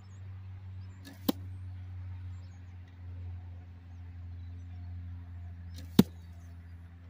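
Two arrows from a recurve bow striking the target: a sharp thud about a second in and a louder one about six seconds in, each just after a short hiss of the arrow arriving.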